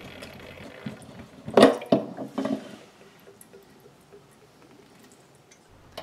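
Chrome spout of a Delta single-handle kitchen faucet being worked up off its brass valve body: one short, louder knock about a second and a half in, followed by a couple of smaller handling knocks.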